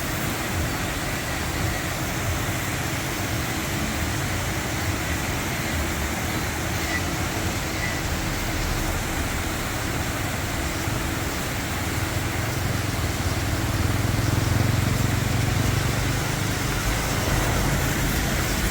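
Steady rushing noise of a large waterfall. A vehicle engine swells in about twelve seconds in and fades again near the end.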